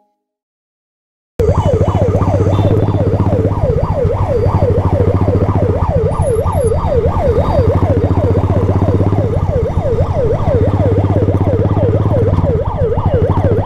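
Ambulance siren in a fast yelp, sweeping up and down about two and a half times a second. It starts suddenly about a second and a half in, over the steady low drone of a motorcycle engine close by.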